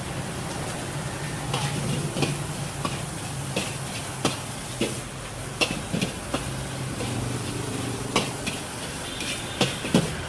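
Food sizzling in a pan while it is stirred, with irregular sharp clacks of the utensil against the pan.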